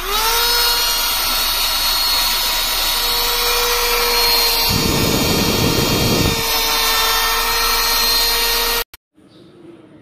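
Motor of a handheld mini 2-in-1 cordless vacuum cleaner switched on, spinning up quickly to a steady high-pitched whine. Midway there is a stretch of lower rushing air noise, and the motor cuts off suddenly near the end.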